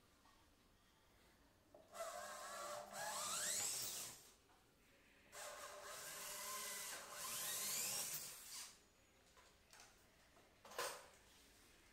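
Handheld electric drill boring holes for a handle through a laminated plywood cabinet door, in two runs of a few seconds each, the motor's whine rising in pitch as it spins up. A single short knock near the end.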